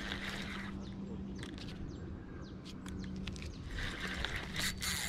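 A spinning reel ticking and whirring in short bursts as a large carp is played on the rod, with birds chirping.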